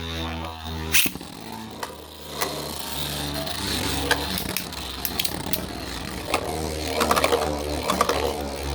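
Beyblade spinning tops whirring in a stadium with a steady hum, and repeated sharp clicks as they strike each other, the hits coming more often near the end.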